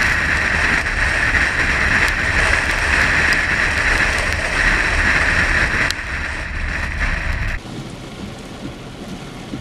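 Heavy rain and wind on a car driving along a wet road, with a steady hiss of rain and tyre spray over a low rumble. It drops off suddenly about seven and a half seconds in to quieter rain and wind.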